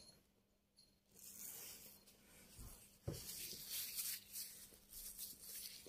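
Rustling and scratching scuffle of a kitten wrestling a plush toy on a carpet, starting about a second in, with a soft thump about three seconds in.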